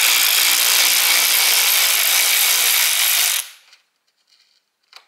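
Power tool running steadily for about three and a half seconds, backing out a bolt, then stopping suddenly; a couple of small clicks follow.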